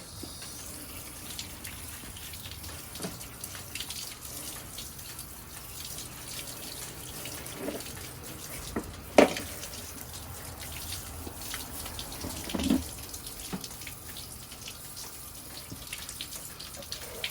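Water running steadily from a garden hose, rinsing freshly scaled fish, with a few knocks along the way, the loudest about nine seconds in.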